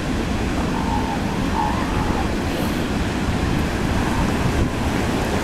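Steady wind rumble on the microphone mixed with surf on the beach, with two faint short calls in the first couple of seconds.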